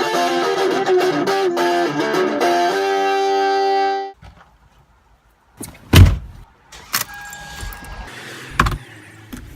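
Electric guitar music that ends on a held chord about four seconds in. After a brief silence come several sharp, loud thumps and knocks, the loudest about six seconds in.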